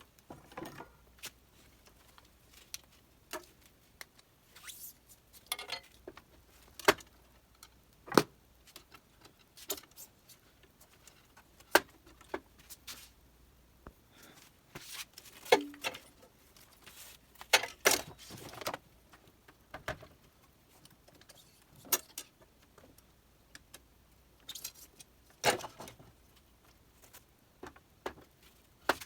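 Irregular clicks, taps and light rattles of small metal and plastic parts being handled while an FLSun delta 3D printer is assembled. The sharpest knocks fall about 8, 12, 18 and 25 seconds in.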